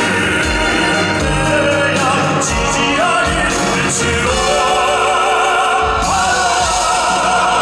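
Live classical-crossover song: operatic male singing over a full instrumental accompaniment with a steady low beat. From about halfway, a held sung line with wide vibrato comes to the front.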